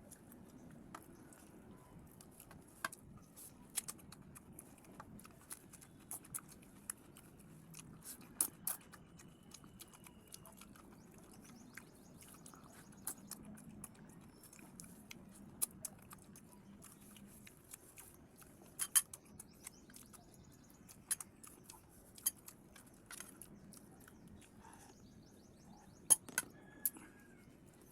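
Close-up eating sounds: quiet chewing with many short, sharp clicks and crunches at irregular moments, a few louder than the rest.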